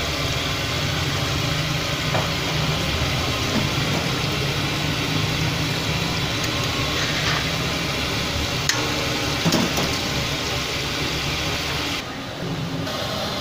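Battered chicken pieces deep-frying in a large wok of hot oil: a steady, dense sizzle with a low rumble underneath. Two sharp metal clicks sound a little past the middle.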